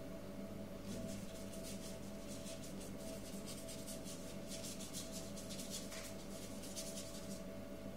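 A paintbrush scratching quick, repeated strokes of paint across paper, several strokes a second, starting about a second in and stopping shortly before the end, over a steady hum.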